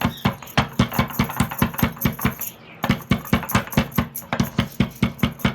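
Pestle pounding pieces of dry ginger in a mortar: rapid, regular thuds, about four a second, with a brief pause about two and a half seconds in.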